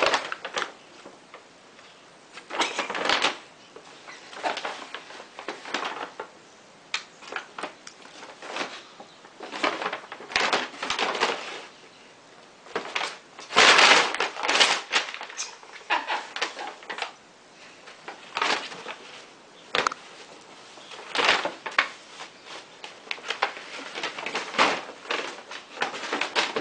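Paper grocery bag crinkling and rustling in irregular bursts as a cat wriggles and bats about inside it, loudest about halfway through.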